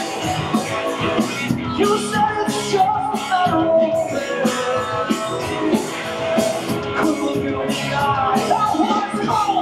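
Live rock band playing: distorted electric guitars, bass guitar and drum kit with cymbals keeping a steady beat, and a male lead vocal singing over it.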